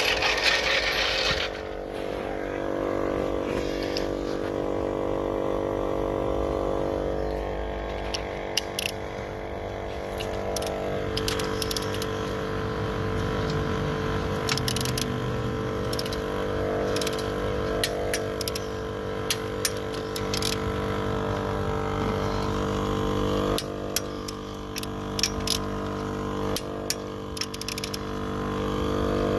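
Portable air compressor running steadily while inflating a tire: an even motor hum, with a short hiss of air at the start and scattered small clicks.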